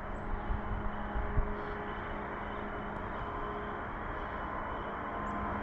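Ski-area snowmaking machines running full blast: a steady mechanical whoosh with a few steady hum tones in it.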